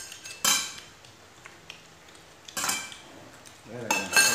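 Metal spoons clinking against ceramic bowls and a metal pot on the table: three sharp clinks with brief ringing, about half a second in, in the middle and near the end.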